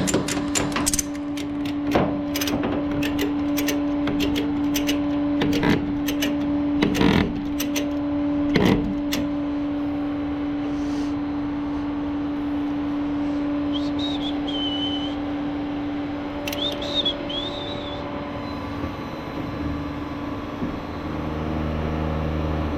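A steady mechanical hum, with a run of sharp metallic clanks and knocks in the first half and two brief high squeaks later. Near the end the hum gives way to a lower, deeper drone.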